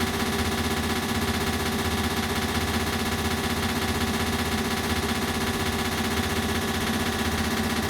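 Ceiling fan running, its sound passed through an added echo effect: a steady drone of several held tones with a fast, even flutter.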